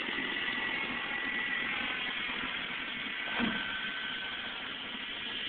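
Jet engine of a jet-powered truck running, a steady roar with a faint high whine. A brief dull thump comes about three and a half seconds in.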